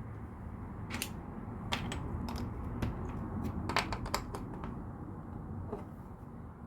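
Plastic LEGO bricks clicking and rattling as pieces are sorted and handled, with scattered sharp irregular clicks over a low steady hum.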